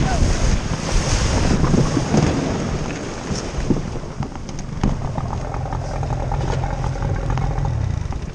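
Wind buffeting the microphone: a heavy, uneven low rumble that eases a little after about three seconds.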